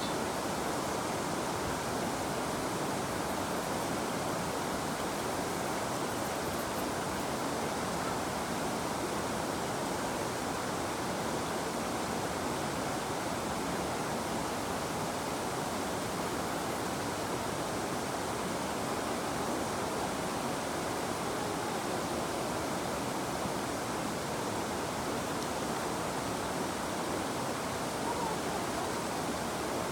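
River water flowing steadily: an even rush of noise with no breaks.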